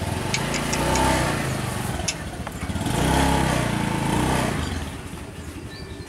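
A motorbike engine swelling and fading twice as it passes, its pitch bending up and down, with a few short high ticks near the start.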